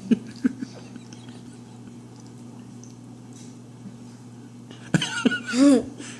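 A steady low hum in a quiet room, with a few brief short sounds in the first second and a voice coming in about five seconds in.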